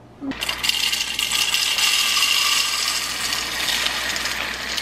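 Whole coffee beans poured from a bag into the bean hopper of a Breville espresso machine, a dense steady rattle of beans hitting the hopper and each other that starts suddenly just after the start.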